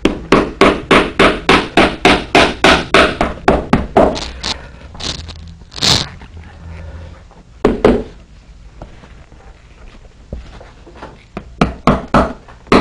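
Hammer tapping wetted leather saddle skirts down around the bars of a saddle tree, in quick even blows about four a second. A few slower, single blows follow, then a pause, and the quick tapping starts again near the end.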